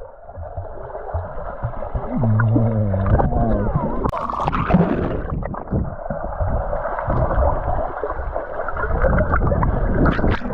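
Muffled pool sounds: indistinct children's voices and sloshing, gurgling water, as if the microphone were wet or partly underwater.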